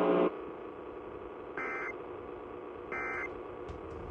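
Emergency Alert System end-of-message tones: three short bursts of digital data tones, about a second and a half apart, marking the end of the alert. A steady tone cuts off just after the start.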